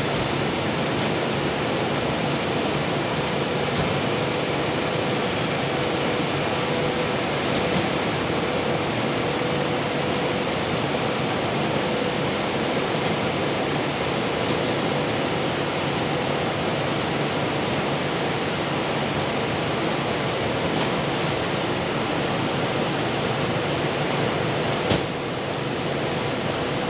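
Steady, even mechanical noise with a faint constant hum running underneath, with a brief bump in level near the end.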